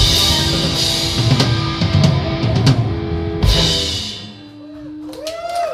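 Live blues rock band (drum kit, electric guitars, bass and keyboard) playing the last bars of a song, ending on a loud drum-and-cymbal hit about three and a half seconds in. The band sound then dies away under a single held note, and near the end the audience starts to shout and cheer.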